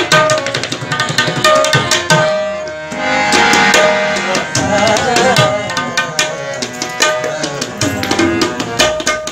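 Tabla played in a quick, steady rhythm, the tuned right-hand drum ringing on a recurring pitch, over sustained harmonium chords. Around two and a half seconds in, the drum strokes thin out briefly while the harmonium swells.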